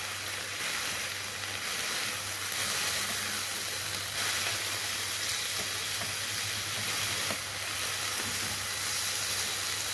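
Marinated chicken fillets sizzling steadily in an oiled grill pan, with a few faint taps as metal tongs lift the pieces out.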